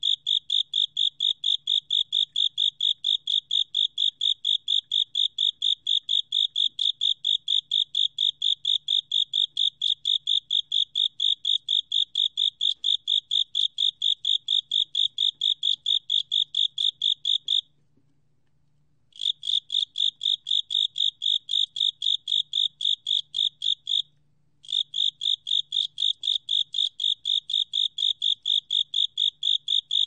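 Far Eastern field cricket (Teleogryllus infernalis) singing at 27 °C: a steady, high-pitched chirping, about four short pulses a second. The song stops for about a second and a half a little past halfway, and again for half a second a few seconds later.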